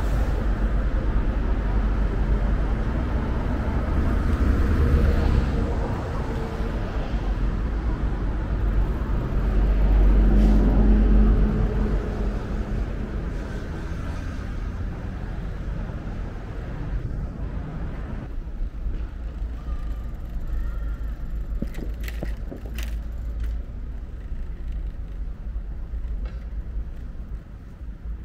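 City street traffic noise heard from a moving bicycle: a steady low rumble of cars and road, louder for the first twelve seconds or so and then easing off, with a few sharp clicks in the later part.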